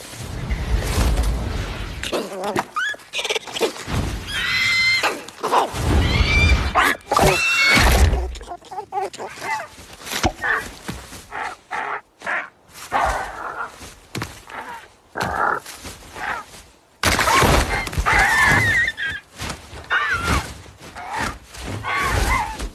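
Rushing wind in several loud low gusts, mixed with repeated high, wavering animal squeals and screeches, thickest near the start and again near the end.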